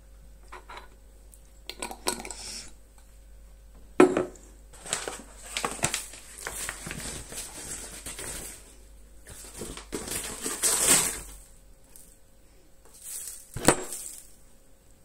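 A metal spoon clinking and scraping against a glass and jars as coffee and sugar are spooned into a glass: a sharp clink about four seconds in, several seconds of rattling and scraping, and another sharp clink near the end.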